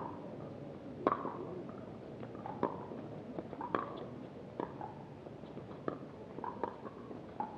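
Pickleball rally: paddles striking the plastic ball, with the ball bouncing on the hard court, giving sharp pops roughly once a second, some fainter than others.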